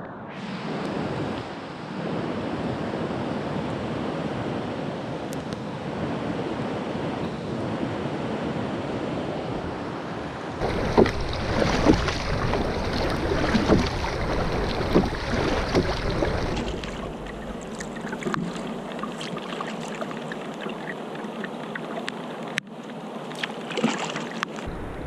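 Steady rain and lake water splashing around a kayak, with wind buffeting the microphone. From about 11 to 16 seconds in it grows louder, with sharper splashes and hits, then settles to a thinner hiss with scattered ticks.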